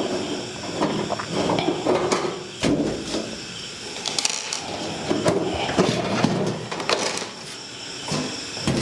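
Irregular clicks, knocks and scrapes of a screwdriver and screws being worked on a desktop computer's metal cabinet, as the side panel screws are taken out.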